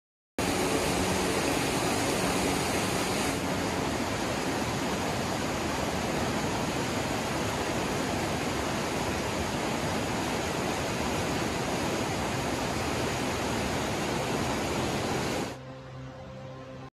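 River rapids: whitewater rushing steadily over and around boulders. Near the end it cuts off suddenly to a much quieter background.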